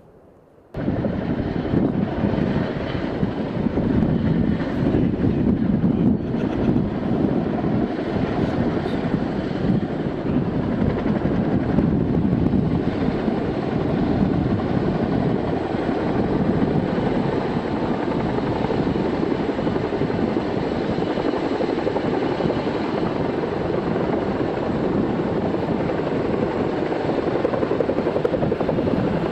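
CH-47 Chinook tandem-rotor helicopter hovering under a sling load, its rotors and turbines making a loud, steady din that starts abruptly about a second in.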